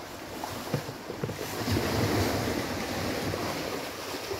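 Small waves breaking and washing onto a sandy beach, with wind on the microphone. The sound swells louder about one and a half seconds in.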